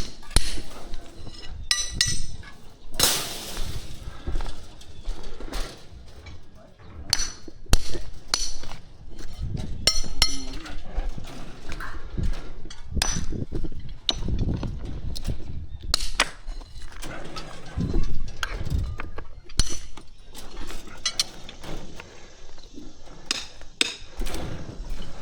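Hammer striking steel form pins to knock them loose and pull them from the concrete forms: a string of irregular metallic knocks and clinks.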